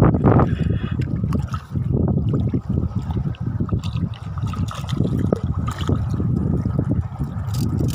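Shallow seawater splashing and lapping close by, over a low, uneven rushing noise that swells and dips.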